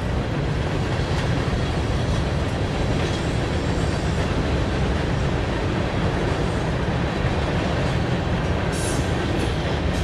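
Freight train of hopper and tank cars rolling by, a steady rumble of steel wheels on the rails.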